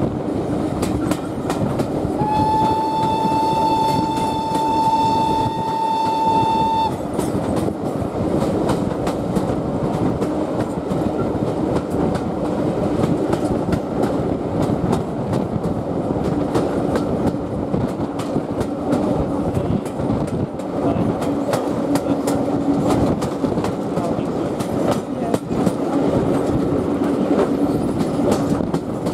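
Whistle of the steam locomotive BR Standard Class 4 2-6-0 No. 76017, one long blast of about four and a half seconds, rising slightly in pitch. Under it and throughout is the steady running of the train's carriages with rail-joint clickety-clack.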